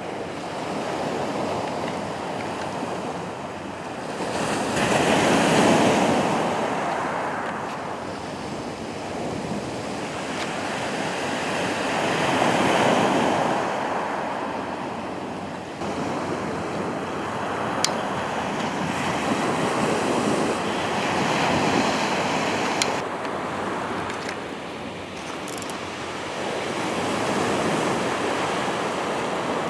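Sea waves breaking on a beach, the surf swelling and fading every several seconds, with wind buffeting the microphone.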